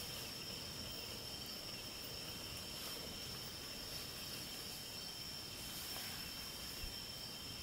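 Steady high-pitched chorus of night insects, holding two constant pitches throughout, with one soft knock near the end.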